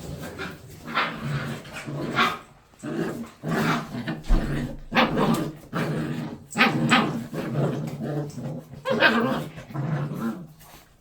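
A dog barking and growling in a run of short repeated calls, about one a second, that stop shortly before the end.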